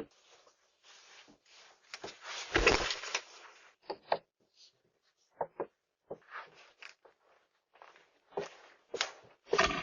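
Crowbar being worked against a front door: irregular short knocks and scrapes, with one longer, louder scraping rattle about two to three seconds in, heard through a doorbell camera's microphone.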